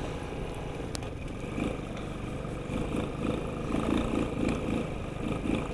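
Sanya X50 110cc scooter engine running steadily while riding along a dirt track, with wind noise on the helmet-mounted camera.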